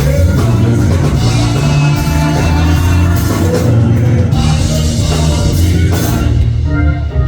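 A live church band, with drum kit, electric bass and guitar, playing an upbeat gospel song in a break between sung lines.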